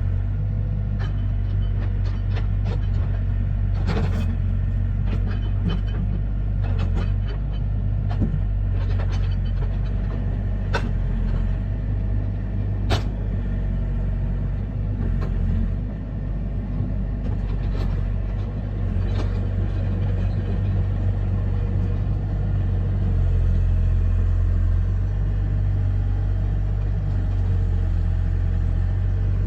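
A steady low rumble with a few scattered sharp knocks and clicks.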